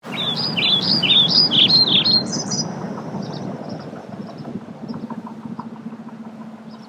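Small songbird twittering in a quick run of short, high chirps for the first couple of seconds, then a few fainter notes, over a steady outdoor hiss.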